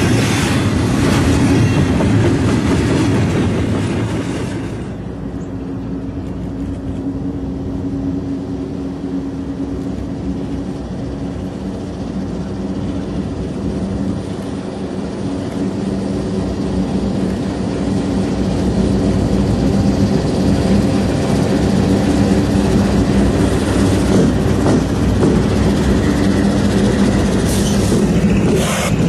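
Double-stack container cars rumbling and clacking over the rail joints, cutting off about five seconds in. A freight train's diesel locomotives then approach with a steady low engine drone that grows louder and stays loud as they pass close, with a few sharp clicks near the end.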